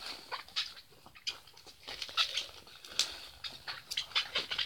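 Plastic bubble wrap crinkling and crackling in irregular bursts as it is handled and pulled off a boxed power bank.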